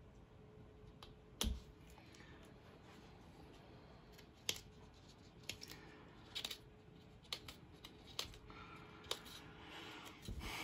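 Small scissors snipping through the leathery shell of a blood python egg: a series of separate sharp snips, about one a second.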